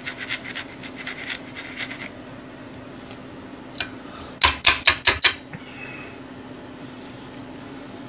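Pineapple being grated on a plastic hand grater over a steel bowl, quick rasping strokes for about two seconds. After a pause comes one knock, then a fast run of about five loud raps as the grater is knocked against the bowl's rim.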